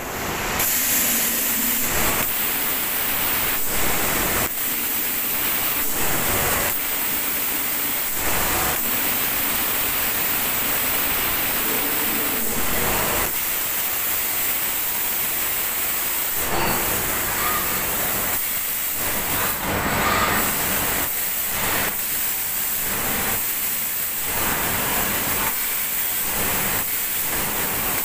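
Compressed-air glaze spray gun on a glazing robot, spraying ceramic glaze onto a toilet: a steady loud hiss that dips and surges briefly many times.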